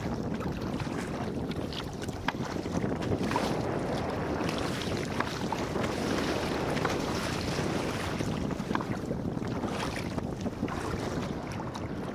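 Wind buffeting the microphone on a sea kayak's deck in choppy water, over the steady wash of waves against the hull, with frequent short splashes from the paddles and the chop.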